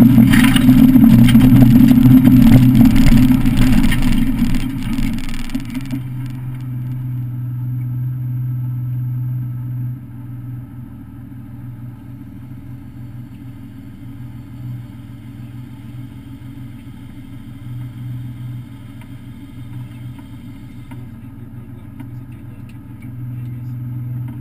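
Citroën SM's Maserati V6, heard from inside the cabin, running hard at first, then easing off over about five seconds and settling to a steady low hum at low revs.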